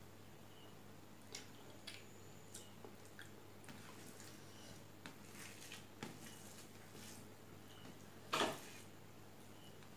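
Fingers squishing and mixing boiled rice with fish curry on a steel plate: faint, scattered wet clicks and squelches, with one louder, brief sound about eight seconds in.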